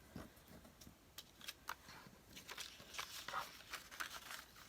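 Paper cutouts being handled and positioned on a collage page: faint, scattered small clicks and short rustles.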